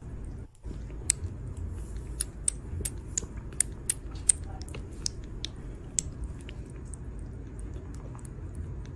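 A kitten suckling milk from a feeding bottle's teat: sharp, wet sucking clicks about twice a second, strongest in the first half and fainter later, over a low rumble.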